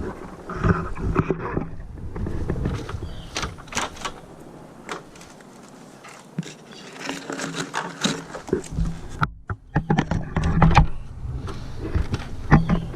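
Irregular scuffs, rustles and knocks of someone moving about on foot and handling things, heavier about two-thirds of the way through.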